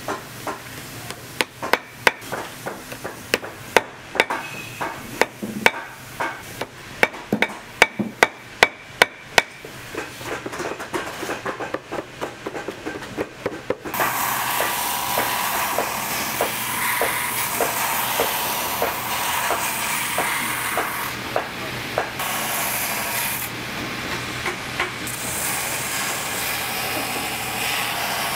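Sharp, irregular taps and knocks of hand tools working on a boot, several a second in quick runs. About fourteen seconds in, a shop machine starts and runs steadily, with a light regular ticking over it for a while.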